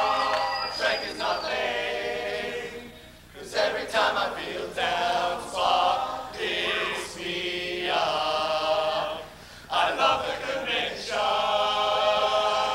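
A chorus of men singing together, in phrases broken by two short pauses.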